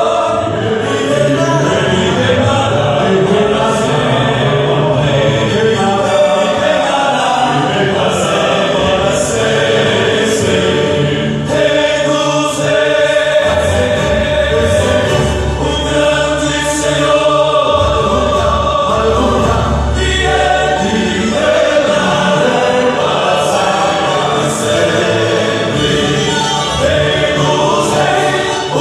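Two gospel vocal quartets singing a song together in close harmony, with instrumental accompaniment and a steady cymbal beat.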